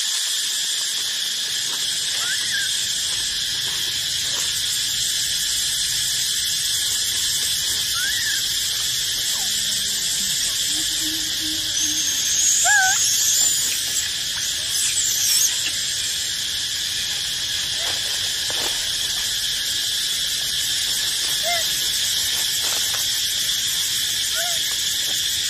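Steady chorus of forest insects, with a few short rising squeaks scattered through it and a louder, higher squealing stretch about twelve to fifteen seconds in.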